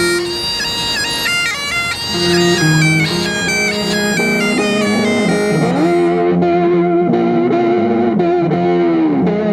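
Street music: a wind instrument plays a melody of held notes. About six seconds in it cuts to an electric guitar playing held, wavering notes, with a bend down near the end.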